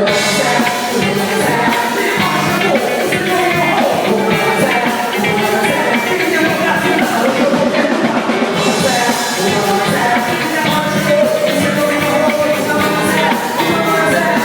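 Live church praise band playing a worship song, with singing over the band.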